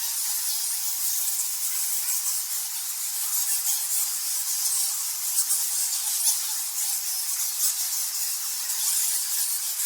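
A colony of bats squeaking and chittering: a dense, steady mass of high-pitched calls.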